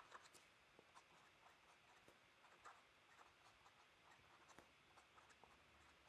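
Faint scratching and light ticks of a fountain pen nib writing on paper.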